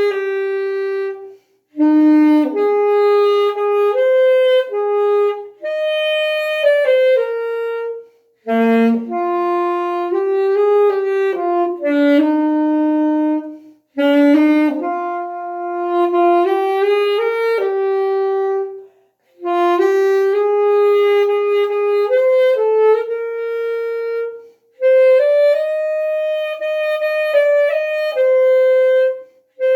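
Saxophone playing a slow solo melody with no accompaniment. It goes in phrases of a few seconds, each separated by a short break for breath.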